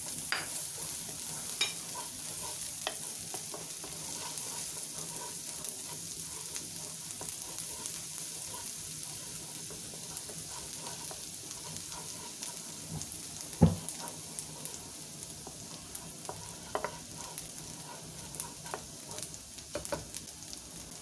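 Minced onion sizzling gently in melted butter in a wok, stirred with a wooden spatula, which gives small scrapes and clicks. One sharp, louder knock about two-thirds of the way through.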